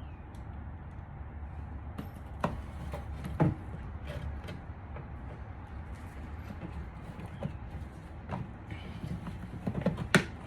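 Scattered light clicks and knocks of hand tools and small metal and plastic parts being handled, over a steady low hum.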